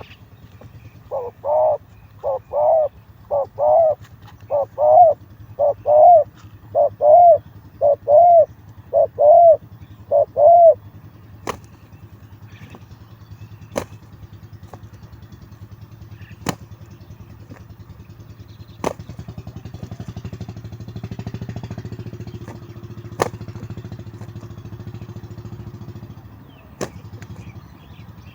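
Spotted dove cooing: a run of about fourteen low, hollow coos in quick groups over the first ten seconds. Afterwards a few sharp clicks sound over a low steady hum that swells between about 19 and 27 seconds.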